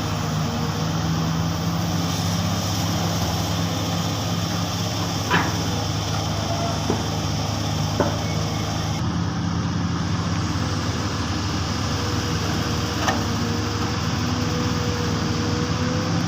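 Long-reach excavator's diesel engine running steadily under work, with four short sharp clanks and a faint steady whine coming in past the middle.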